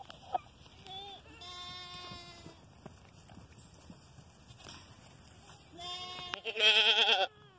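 Goats bleating, several calls with pauses between, the last one the loudest and wavering in pitch near the end.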